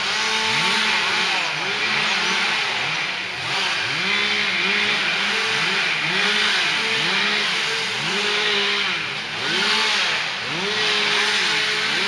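Several gas string trimmers running at once, their small two-stroke engines revving up, holding and dropping back again and again, the revs of different machines overlapping.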